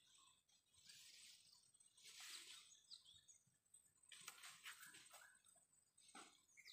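Near silence: faint, scattered rustling, with a couple of faint short chirps about two to three seconds in.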